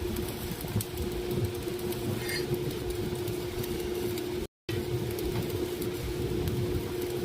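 Steady machine hum with one constant mid-pitched tone over a low rumble, with a brief total dropout a little past the middle.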